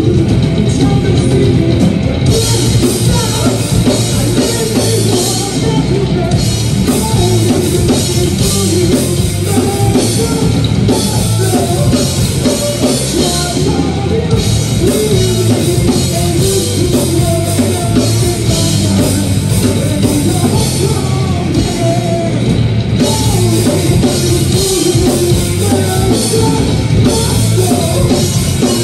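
Rock band playing loud and live: electric guitars, bass guitar and a drum kit, with a male singer.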